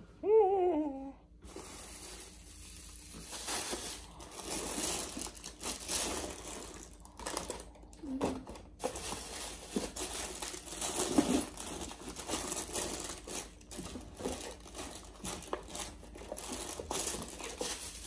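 Continuous crinkling and rustling full of small irregular crackles, after a brief vocal sound in the first second.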